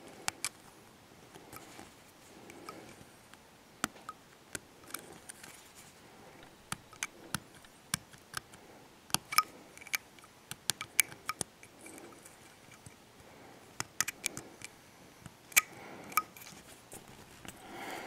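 Hobby knife blade cutting and scraping a small plastic part, making irregular, sharp little clicks. The clicks come thickest about nine to eleven seconds in and again around fourteen to sixteen seconds.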